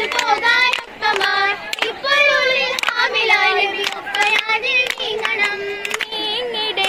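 Girls singing an oppana song in chorus, punctuated by sharp hand claps.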